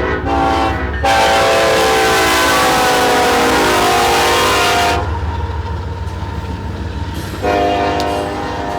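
Diesel locomotive air horn on a coal train: a short toot, then one loud long blast of about four seconds, and another blast starting near the end. A low engine and rail rumble runs under it.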